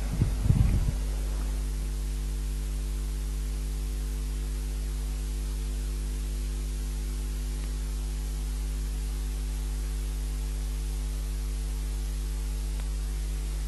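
Steady electrical mains hum, several even tones under a faint hiss, unchanging throughout.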